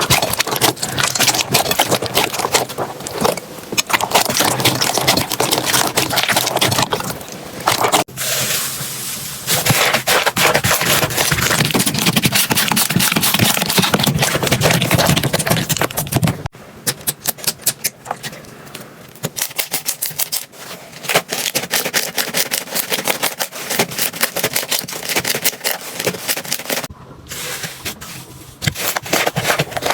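Slime being squeezed and pressed by hand, making dense crackling, clicking and popping sounds. The sound changes abruptly about 8 and 16 seconds in as one slime gives way to another.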